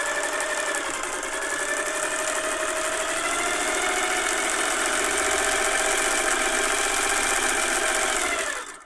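Singer 401A Slant-O-Matic sewing machine running steadily, stitching a decorative cam pattern through duck cloth, freshly cleaned, oiled and greased; it stops suddenly near the end.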